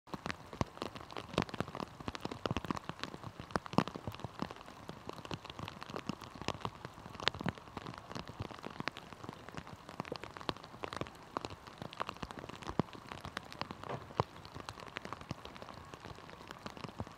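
Steady rain, with many irregular ticks of drops striking close by.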